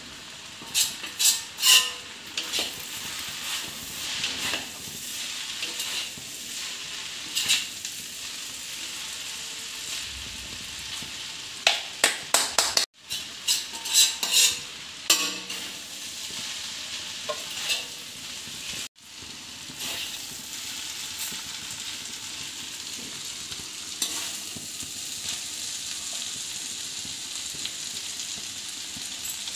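Noodles sizzling in a hot black iron kadhai as they are stir-fried and tossed with a spatula and a metal slotted spoon. Clusters of sharp clinks and scrapes of the utensils against the pan come in the first half over a steady sizzle. The later part is mostly even sizzling.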